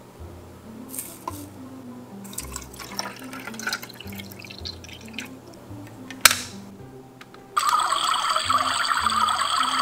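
Powder spooned and water poured into a small toy kettle, then a sharp click as the lid snaps shut. From about 7.5 seconds in, the switched-on battery toy kettle plays a loud, steady bubbling boiling-water sound effect from its speaker. It lights up and makes the sound but does not actually heat the water.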